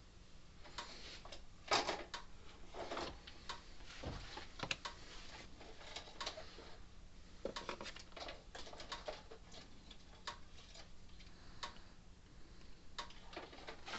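Irregular light clicks and knocks of small parts and tools being handled at a workbench, over a faint steady hum.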